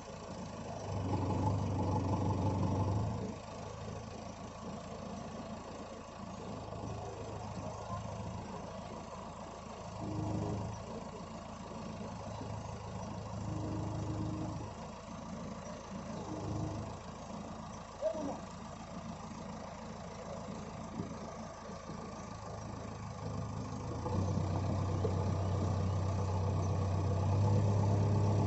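JCB 3DX backhoe loader's diesel engine running near idle, its revs rising for a second or two several times and staying up for the last few seconds. A single sharp knock about two-thirds of the way through.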